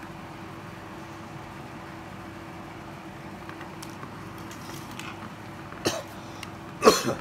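A person coughs near the end, once lightly and then more loudly, over a steady background hum with a few faint clicks.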